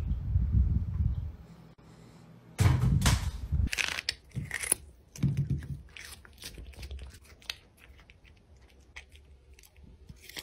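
A cat biting and chewing a cucumber close to the microphone: a run of crisp crunches and snaps as its teeth break through the skin and flesh, starting about two and a half seconds in. Before that, a low rumbling noise.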